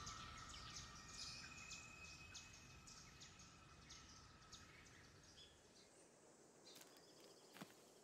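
Near silence: faint outdoor ambience fading away, with a few soft high bird chirps in the first half.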